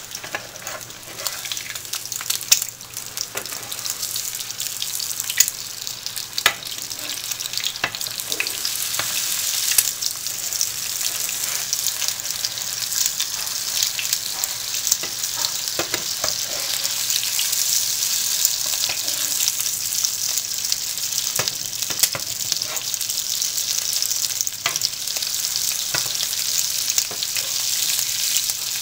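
Eggs sizzling in a small nonstick frying pan while a slotted metal spatula scrapes and chops them, with frequent clicks of the spatula against the pan. The sizzle grows louder over the first ten seconds or so.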